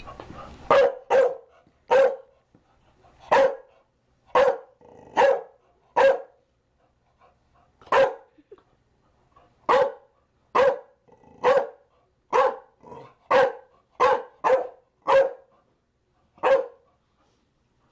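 Chow Chow dog barking: about twenty short, sharp single barks at uneven intervals, roughly one a second, sometimes in quick pairs.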